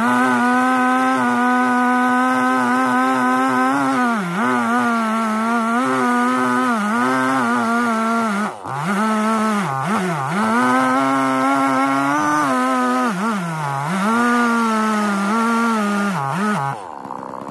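Holzfforma G660 two-stroke chainsaw running at full throttle while ripping through red oak in a chainsaw mill, its engine note dipping again and again as it bogs under load and recovers. Near the end the engine note drops and quietens.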